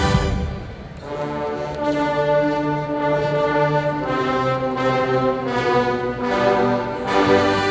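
Marching band brass playing a slow passage of held chords that change every half second or so, after the full band with drums cuts off at the start. Low brass notes come in near the end.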